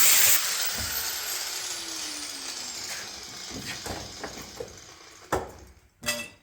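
A power cutting tool on rusted car body steel stops about half a second in and its whine winds down, falling in pitch over the next couple of seconds. A few knocks and clicks of metal being handled follow.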